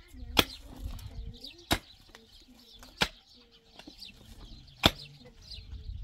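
A hand digging tool striking stony, rocky ground: four sharp hits, about one and a half seconds apart.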